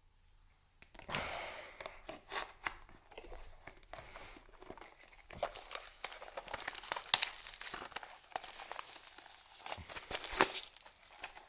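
Cardboard and plastic wrap of a trading-card booster box being torn open by hand, with irregular crinkling and rustling and one sharper snap near the end. The tearing is rough enough to damage the box.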